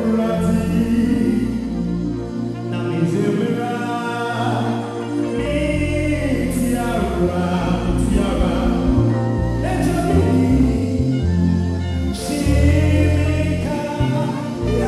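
Live gospel worship music: a man singing into a microphone over a band with a steady bass line and cymbal crashes, with other voices singing along.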